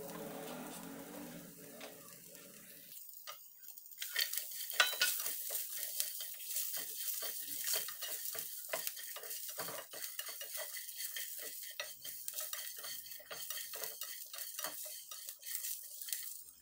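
Whole spices, green chillies and garlic sizzling in oil in a nonstick frying pan. From about four seconds in, a spatula stirs and scrapes them against the pan in quick, irregular strokes over the sizzle.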